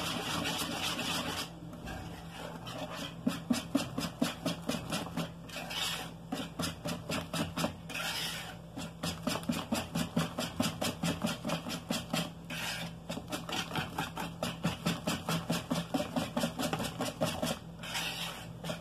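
Thin cake batter being beaten by hand in a plastic bowl: quick, rhythmic scraping and sloshing strokes, about four a second, with a few brief pauses, as baking powder is mixed in.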